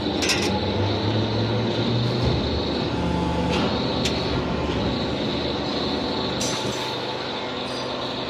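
Metalworking machinery running steadily, with a continuous hum, a high whine and a few short sharp clicks.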